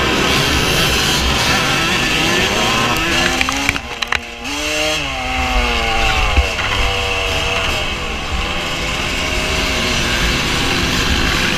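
Vintage motocross bike engine running hard on an on-board camera, its pitch climbing and dropping as the rider works the throttle through the gears, with wind rumbling on the microphone. About four seconds in, the engine dips briefly and there are a few sharp knocks.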